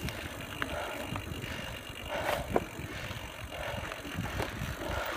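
Canyon Spectral enduro mountain bike rolling fast down a loose gravel track: tyres running over stones with a steady rumble, the bike rattling and giving a few sharp knocks over bumps, heard through a phone taped to the rider's chest.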